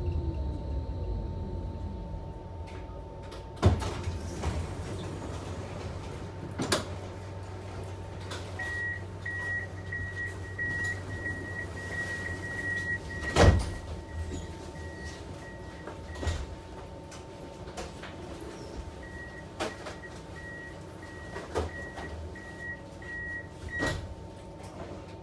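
Tram's motor whine falling in pitch as it brakes, then its doors knocking open and shut over a steady electrical hum. A high door-signal beep pulses for several seconds, twice.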